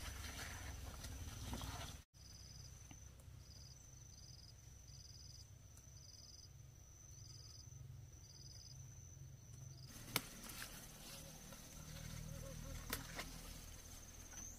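Insects chirping in the vegetable garden: a steady high whine with a second high note pulsing in short chirps about once a second. From about ten seconds in, close rustling of squash leaves and vines with two sharp snaps as shoots are picked.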